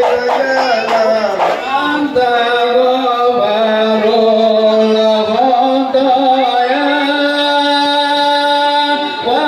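Singing with musical accompaniment: a few drum strokes in the first two seconds, then a voice holding long, steady notes.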